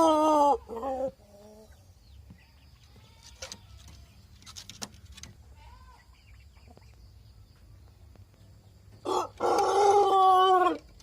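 A rooster crowing. A long crow dies away in the first second, followed by a short call. After a quiet stretch with a few faint clicks, a second crow of about two seconds begins about nine seconds in.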